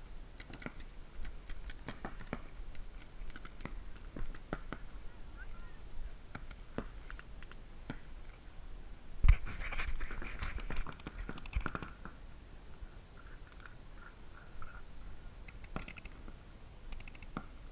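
Paintball markers firing across the field: scattered single pops and quick rapid-fire strings of shots, busiest from about nine to twelve seconds in. A loud thump about nine seconds in.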